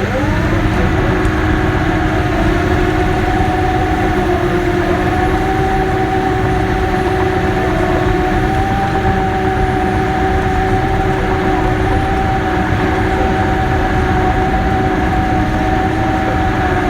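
Cat D6K bulldozer running under load while pushing clay: a steady diesel rumble with a held whine that climbs in pitch at the start, stays level, then stops just after the end.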